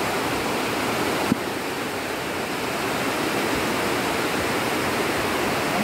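Steady rush of river water pouring over rocks in small cascades, with a single brief click about a second and a half in.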